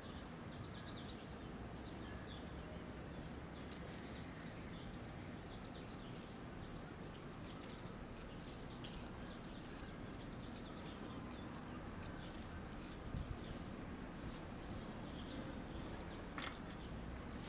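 Cats eating together from a bowl: faint, irregular small clicks of chewing and lapping over a low background rumble, with a soft thump about two-thirds of the way through and a sharper click near the end.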